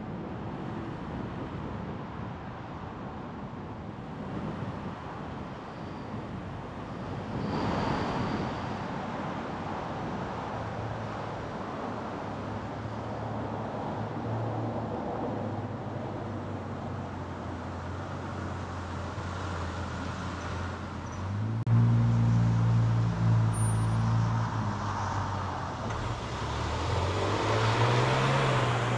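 Car driving on city streets: steady road and tyre noise with a low engine hum. A swell of passing traffic comes about eight seconds in. About three quarters of the way through, an engine note comes up louder and then rises in pitch near the end as it accelerates.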